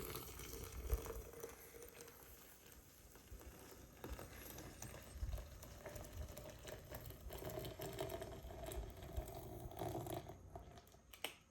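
Just-boiled water poured from the electric kettle's pot into a French press: a splashing trickle whose pitch rises slowly as the press fills, ending with a sharp click just before the end.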